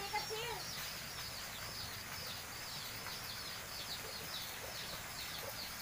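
Small birds chirping in the background, a steady stream of short, high, falling chirps a few times a second.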